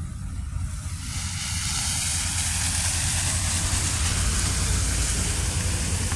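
Road traffic noise on a wet, slushy street: a steady low rumble, with a broad hiss like tyres on slush that swells about a second in and holds.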